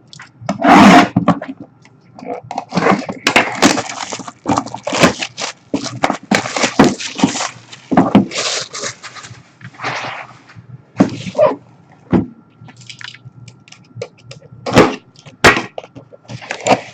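A sealed trading-card box and its wrapping being torn open and handled by hand: irregular crinkling and ripping, in quick uneven bursts.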